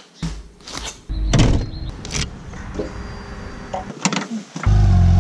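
Textile motorcycle jacket being zipped up and fastened: a few short rasping zip strokes and fabric rustle. Just before the end a loud steady low drone starts suddenly.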